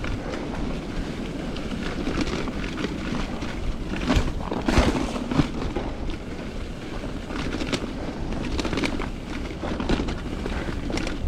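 Mountain bike riding a bumpy dirt trail: wind rumbling on the microphone, with tyre noise and scattered rattles and knocks from the bike over bumps.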